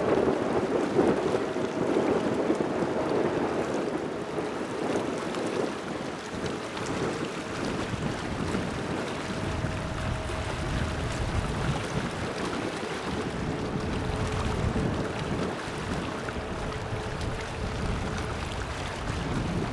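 Airbus A350-900's Rolls-Royce Trent XWB jet engines running during the landing rollout, a steady distant rumble with faint tones that come and go, mixed with wind buffeting the microphone.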